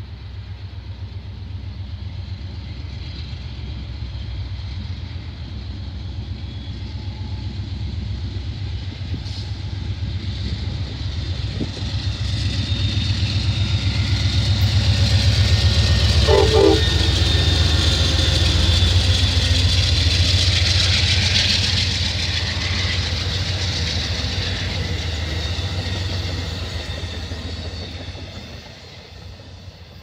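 An Amtrak GE Genesis P42DC diesel locomotive and its passenger cars approach, pass close by and run away. The engine and wheel rumble builds to its loudest about halfway through, with a short horn sound as the locomotive goes by, then fades near the end.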